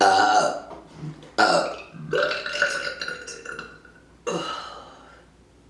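A woman burping on command: four loud burps in a row, the third long and drawn out.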